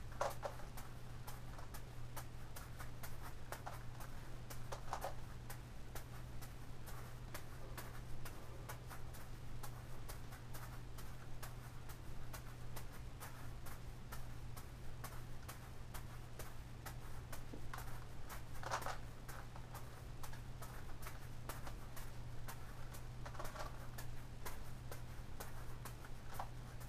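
Rapid, irregular plastic clicking as a Gigaminx puzzle's layers are turned, mixed with soft catches of juggling balls, over a steady low hum.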